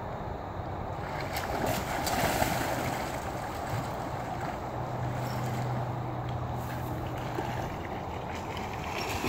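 Water splashing from a dog paddling in a pond, with wind on the microphone. A low steady hum sounds for a few seconds in the middle.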